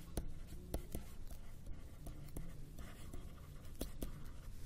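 Stylus writing on a tablet: soft scratching with scattered small tapping clicks as the pen strokes land, over a faint low hum.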